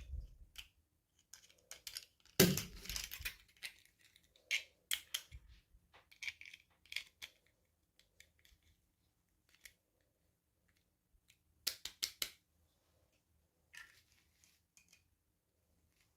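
Toy packaging being handled and opened by hand: irregular crinkles, rustles and small clicks, loudest for about a second starting two and a half seconds in, with another short cluster near the end.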